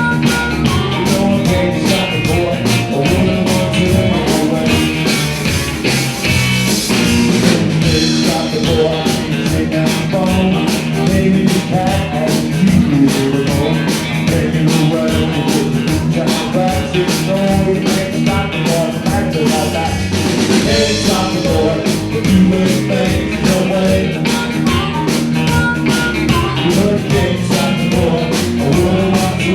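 Rock and roll band playing live, with guitar, drums and singing.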